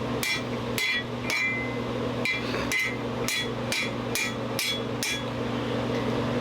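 Hand hammer striking hot steel on an anvil, about ten ringing blows at roughly two a second with a short pause after the third, over a steady low hum.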